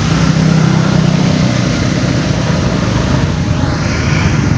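Steady motor-vehicle noise: an engine's low hum, strongest in the first second and a half, under a loud even rush.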